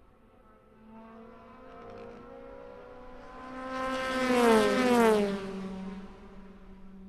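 A Le Mans race car passing at speed on a steady throttle. Its engine note grows louder, drops in pitch as it goes by about five seconds in, then fades away.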